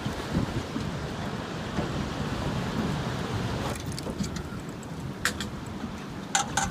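Steady motor and wind-and-sea noise from a small fishing boat under way. About four seconds in it drops quieter, and a few sharp clicks and rattles follow, the strongest near the end.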